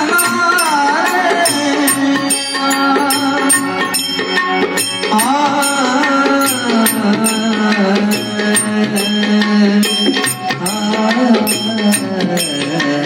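Indian devotional bhajan: a singer's voice carrying a bending melody over sustained harmonium notes, with tabla strokes and a steady run of sharp metallic ticks keeping the beat.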